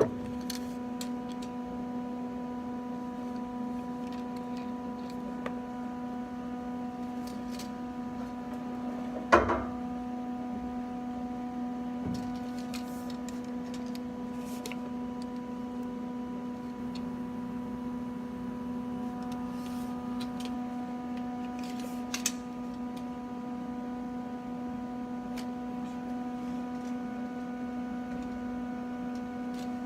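Steady electrical hum, with a few faint clicks and one sharp knock about nine seconds in.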